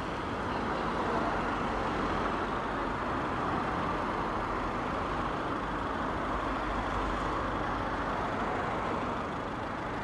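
Steady rush of road traffic, an even noise with a low rumble beneath.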